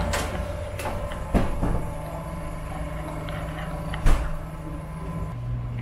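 Steady low hum of refrigerated seafood display cases, with two sharp knocks about a second and a half and four seconds in. The hum drops in pitch near the end.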